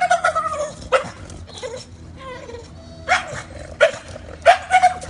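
English bulldog puppy making excited noises that sound like a turkey: a string of short, high-pitched yelping calls, about seven of them, the longest at the start and near the end.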